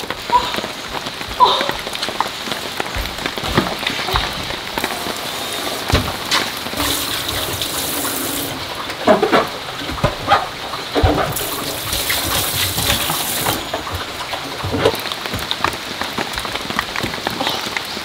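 Heavy rain falling, a steady hiss with many drops ticking sharply on nearby surfaces. Twice the hiss turns brighter for a couple of seconds.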